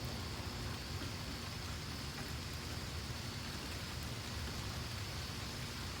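Steady rain falling, with a faint, steady high-pitched tone above it.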